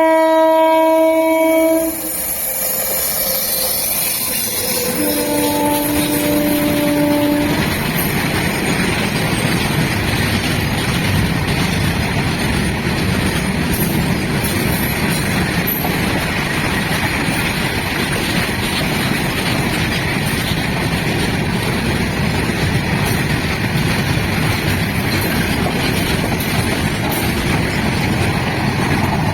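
Indian Railways WAG-9 electric locomotive sounding its horn twice: one blast as the sound opens, ending about two seconds in, and a second, lower-pitched blast about five seconds in. After that comes the steady loud rush and rumble of the train running past at speed.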